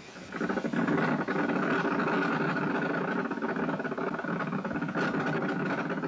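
Bats' ultrasonic cries made audible by Professor Pierce's ultrasonic detector and played through its loudspeaker. It is a fast clicking that runs together into a continuous crackling buzz, and it comes up sharply as the gain is turned up about a third of a second in.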